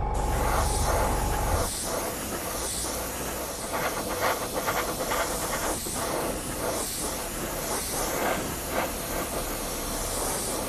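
Gravity-feed airbrush spraying base-coat paint: a steady hiss of compressed air that swells and dips as the trigger is worked. A low hum and a faint whistle under the hiss stop about two seconds in.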